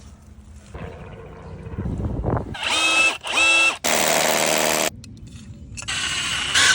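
A small electric power tool whirring in two short bursts, its pitch rising at each start and dropping at each stop. A longer, louder hissing run follows about four seconds in, and a shorter hiss comes near the end.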